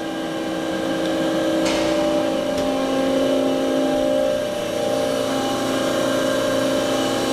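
Makino A51 horizontal machining center running, its pumps and motors giving a steady hum with several level tones. A brief hiss comes about two seconds in.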